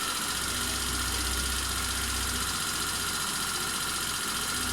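GY6 150cc single-cylinder four-stroke scooter engine running at a steady idle, freshly restored and on test.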